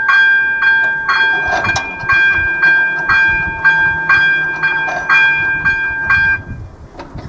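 Electronic level-crossing bell (AŽD ZV 02) ringing in quick, evenly spaced strikes, about two a second, over the rumble of a train passing across the crossing. The bell cuts off about six seconds in, leaving the train's running noise.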